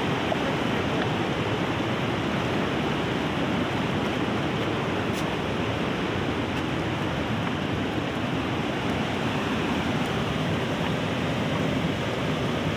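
Steady rushing of a fast mountain river running over boulders and rapids.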